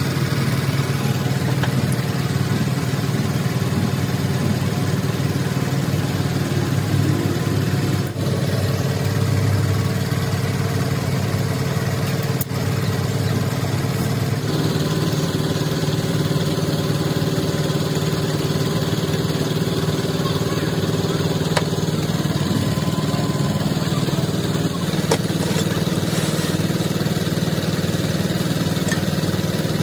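Steady drone of a small engine running.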